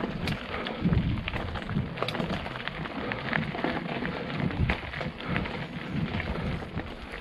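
CTM Scroll 2018 mountain bike riding down a rough dirt trail: a constant rumble of tyres over dirt and stones, broken by frequent sharp clicks and rattles from the bike.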